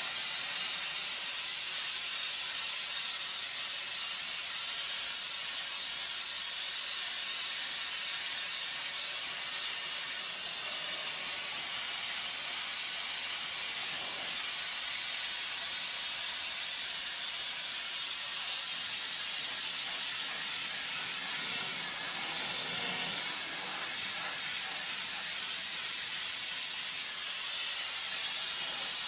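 Steady hiss of a high-pressure blasting nozzle spraying against a large metal drum, running continuously without a break.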